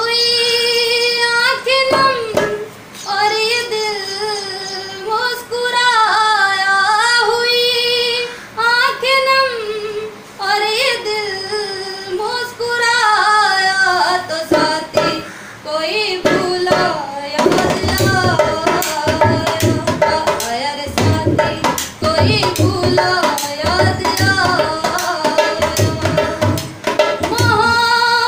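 A woman singing a Hindi folk-style song in long, sliding held notes; about halfway in a dholak joins with a steady rhythmic beat under the voice.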